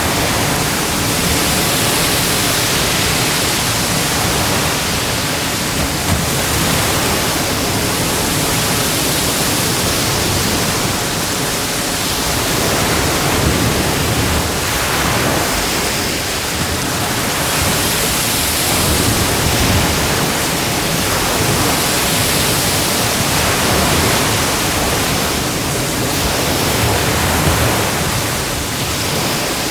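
Ocean waves breaking and washing on a beach: a continuous loud rush of surf that swells and eases every few seconds.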